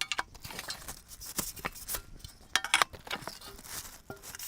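Aluminium roof-rack slats and parts being handled and lifted out of their shipping box: scattered light clinks and knocks mixed with rustling packaging.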